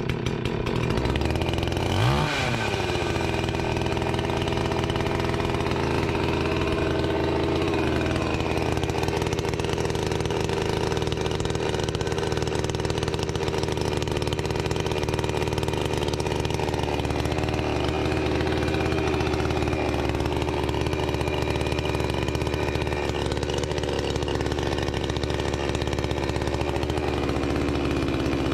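Two-stroke chainsaw, just started, running steadily at idle with the choke open. There is a short throttle blip about two seconds in, and the engine speed wavers slightly later on.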